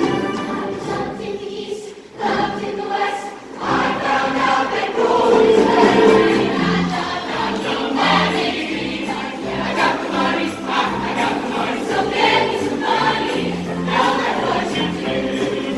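Show choir singing with instrumental backing and a pulsing bass line; the music drops away briefly about two seconds in, then comes back in full.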